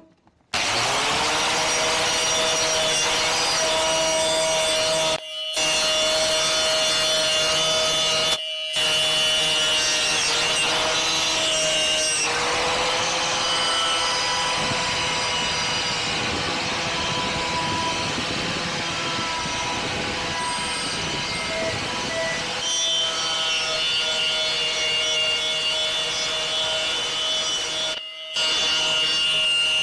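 Angle grinder spinning up about half a second in, then running steadily with a whine as it strips paint and rust from the steel front fork of a 1980 Suzuki FZ50 moped. The sound breaks off briefly three times.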